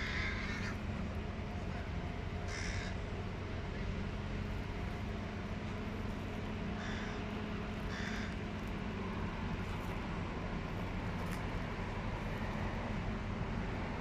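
Hooded crow fledglings giving harsh begging caws, the hungry young calling for food from the parent: four short calls in the first eight seconds or so, the first one longest, over a steady low hum.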